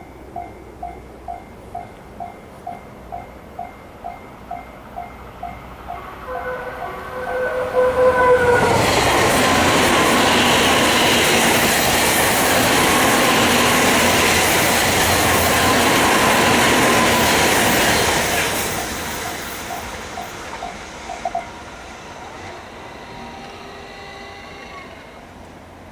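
Japanese level-crossing signal dinging steadily at about two to three strikes a second. A short two-tone train horn sounds about six seconds in. An E351-series Super Azusa limited express then passes loudly for about ten seconds and fades away, and the crossing dings come back briefly near the end.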